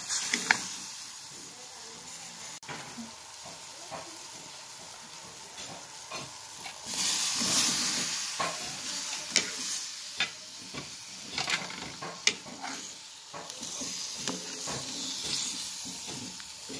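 Curry liquid simmering and sizzling in a pot, stirred with a wooden spoon that clicks against the pot now and then. About seven seconds in, the hiss briefly gets louder as peeled rambutans are tipped in from a bowl and stirred through.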